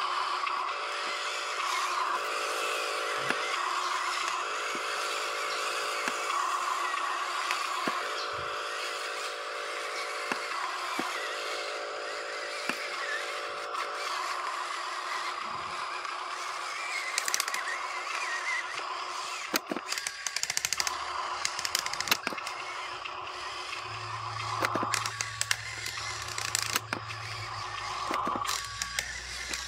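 Electric drive motor and gearbox of a radio-controlled Huina dump truck whining in short stretches as it drives over dirt, with scattered small clicks and scrapes. A steady high hum runs underneath, and a low hum comes in near the end.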